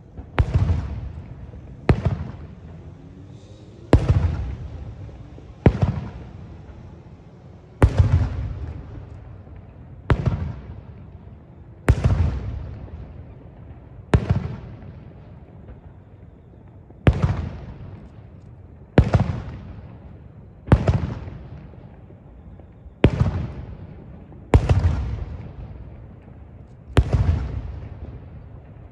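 Aerial firework shells bursting one after another, about every two seconds, each a sharp bang followed by an echoing rumble that fades away.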